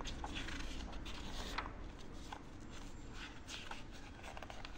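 Glossy catalogue pages being handled and turned by hand: a quiet series of short paper rustles and brushes.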